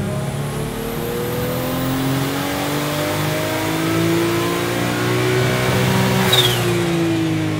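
Turbocharged RB26 straight-six in a Nissan 240Z revving steadily higher at full throttle on a chassis dyno during a power run. About six seconds in there is a sudden rush of noise with a falling whistle, and the revs then drop.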